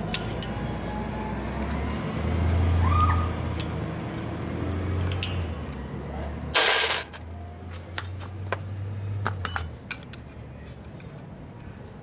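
Light metal clinks and taps of hand tools on motorcycle clutch parts, over a low steady hum that stops near the end. A short loud burst of hiss comes about seven seconds in.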